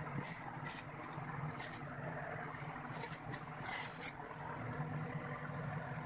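Steady low hum of a refrigerator compressor running on a fresh R134a charge, with several brief scraping noises, the longest about four seconds in.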